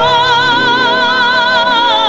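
A woman's voice holding one long sung note with a wide vibrato, over grand piano chords.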